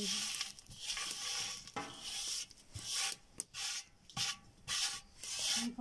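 Hands rubbing and mixing a dry panjeeri mix of flour, coconut and chopped dry fruit in a steel pot: a gritty scraping rustle in repeated strokes, with a few sharp clicks.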